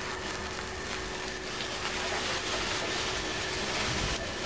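Bottle gourd leaves simmering in spiced liquid in a non-stick frying pan, a steady sizzling bubble, while a wooden spatula turns them.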